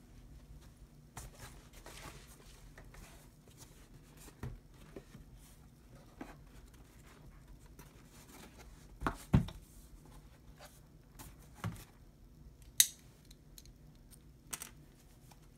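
A cardboard shipping box handled and turned over on a hard countertop while a small red pocket knife works at its packing tape: scattered scrapes and small clicks, two knocks of the box against the counter about nine seconds in, and a short sharp rasp of the blade near the end.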